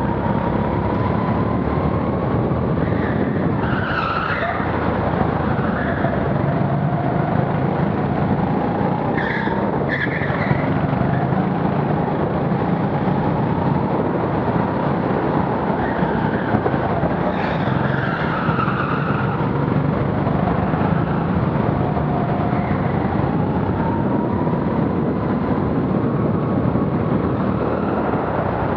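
Go-kart running hard round an indoor track, its motor note rising and falling with speed over constant wind rush on a helmet-mounted camera. Short tyre squeals come through the corners, around four, ten and seventeen seconds in.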